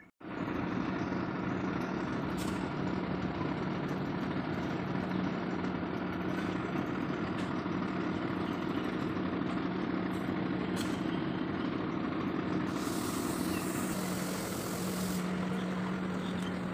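Heavy truck diesel engine idling steadily, with a high hiss lasting about two seconds near the end.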